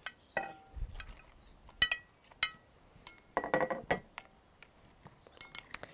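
Clinks and knocks against a glass mixing bowl as halved endive heads are slid in from a platter and tossed in marinade with a wooden spoon; scattered taps, some ringing briefly, with a busier run of them about three and a half seconds in.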